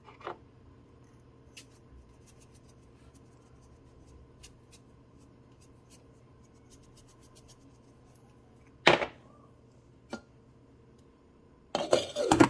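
Kitchen cookware and utensils being handled: light ticks over a faint steady hum, a sharp clank about nine seconds in, a smaller knock a second later, and a short run of clattering near the end.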